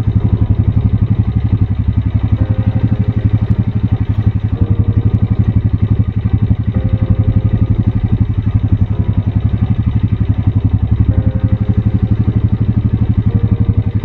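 Vehicle engine idling steadily and loudly, with a fast, even pulse.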